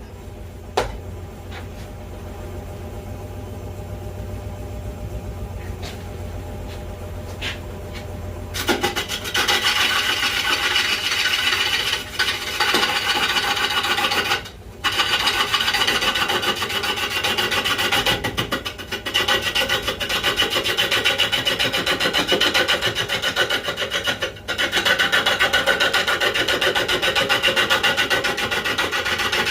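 Wood lathe spinning a piece of magnolia with a low hum, then a bowl gouge cutting into the turning wood from about eight seconds in. The cutting is a loud, rapidly pulsing scraping hiss, broken off briefly three times.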